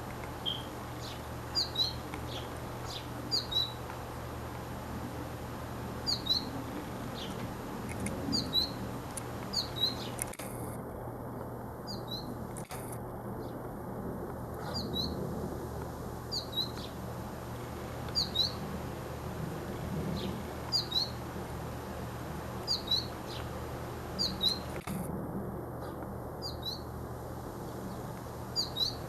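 A sparrow chirping: short, high chirps, often in pairs, repeating every second or two over a steady background hiss and low hum.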